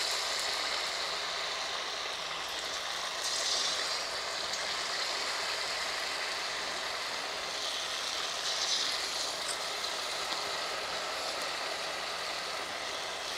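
Batter-coated cauliflower florets deep-frying in hot oil in a metal kadhai: a steady sizzle and crackle. It swells briefly a few seconds in and again about eight seconds in, as more pieces go into the oil.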